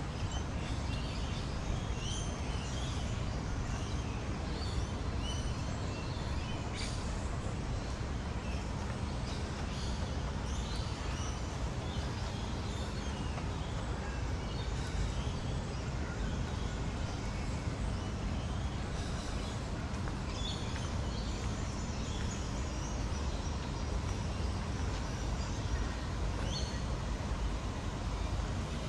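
Urban park ambience: a steady low rumble of distant city noise, with many short bird chirps and calls scattered throughout.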